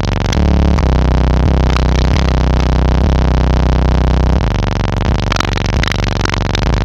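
Bass-heavy music played loud through a car audio system's subwoofers inside a Chevrolet truck's cab. Deep bass notes are held for the first few seconds, then hit more broken up toward the end.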